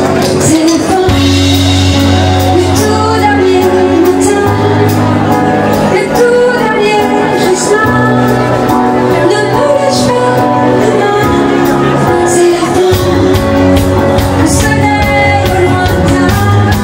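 Dance-band music with a steady beat and sustained bass notes that change every couple of seconds, with a melody line above.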